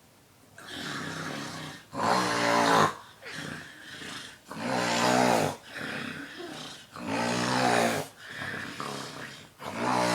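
A sleeping boy snoring extremely loudly: four harsh, buzzing snores, one about every two and a half seconds, with softer breathy sounds between them.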